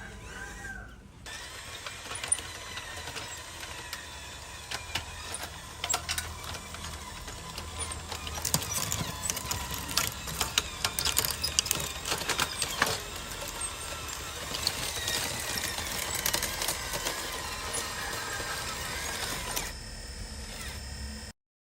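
Radio-controlled construction models working: small electric motors and gears whining steadily, with many scattered clicks and scrapes, busiest in the middle.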